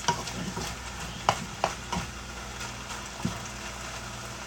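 Half-cooked chicken breast pieces sizzling in a nonstick frying pan as a wooden spatula stirs them, with a few light knocks and scrapes of the spatula against the pan.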